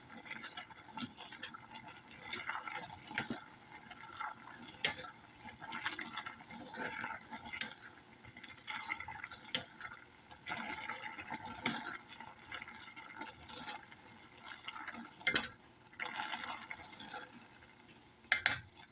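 Cooked noodles being stirred together with sauce in a pot: wet, sticky squelching with irregular clicks and scrapes of the utensil against the pot.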